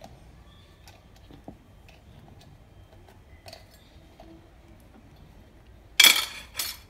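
Metal multi-wheel dough cutter set down on a metal plate: a brief double clatter near the end, the loudest sound. Before it, faint scattered clicks and taps of hands working the cut dough on a wooden board.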